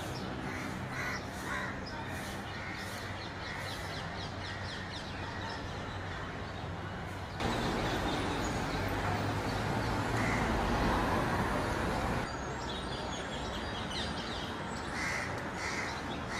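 Crows cawing repeatedly over a steady background of street noise. In the middle, a louder stretch of dense traffic noise cuts in for about five seconds and stops suddenly, and the caws are heard again near the end.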